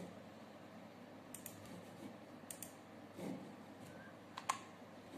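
A few sharp, faint clicks from working a computer's keys and mouse: a quick pair about a second and a half in, another pair about a second later, and a single click near the end, over faint room hiss.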